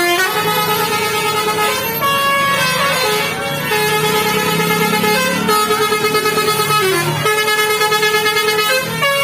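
A bus's 'telolet' basuri multi-tone air horn playing a tune, loud held notes that change pitch every second or two, over a low engine hum.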